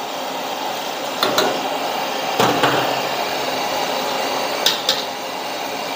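Steady rush of a gas stove burner under a wok of boiling water, with a few sharp clicks of a metal spatula against the steel wok: two about a second in, one near the middle, and two more close together near the end.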